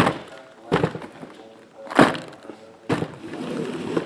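Shrink-wrapped cardboard trading-card boxes being set down and stacked on a table: four sharp knocks, about a second apart, with some rustling and sliding after the last.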